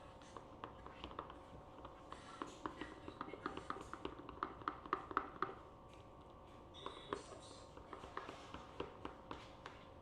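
A utensil stirring a thick mayonnaise-based sauce in a bowl: quick, irregular taps and scrapes against the bowl, in two spells with a short pause around the middle.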